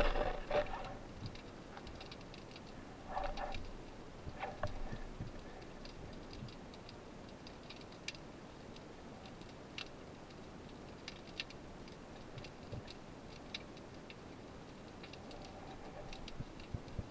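Faint underwater clicks and snaps, scattered irregularly a few times a second, over a low hiss of the sea around a rocky seabed. There are a couple of short, duller rustling bursts about three and four and a half seconds in.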